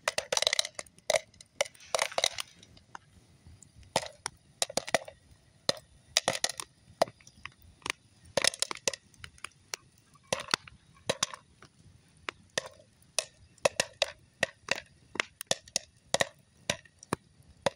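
Popcorn popping in a metal pot hung over a campfire: irregular sharp pops, sometimes several in quick succession.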